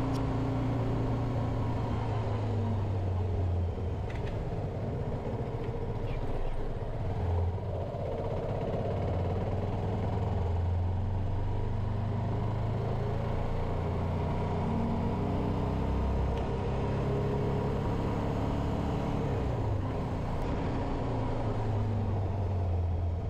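Bajaj Avenger motorcycle's single-cylinder engine running steadily while riding on the road, its pitch dropping and rising several times with speed and gear changes.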